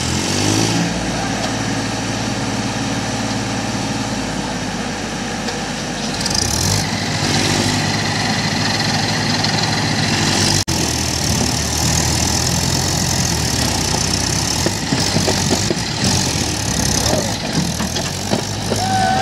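Tractor diesel engines running hard under load as a tractor pulls a soil-laden trailer through mud. The engines rev up about half a second in and again around six seconds in.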